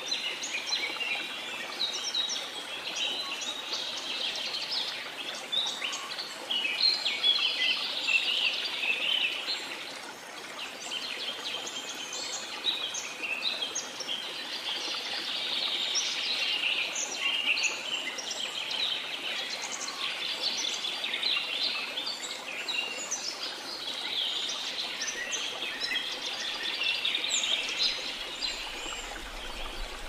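A dense chorus of many songbirds chirping and trilling at once, thickening and thinning in waves, over a steady rush of flowing water.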